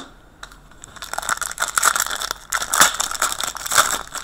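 Foil wrapper of a 2015-16 Upper Deck Portfolio hockey card pack crinkling as it is handled, a dense run of crackles starting about a second in.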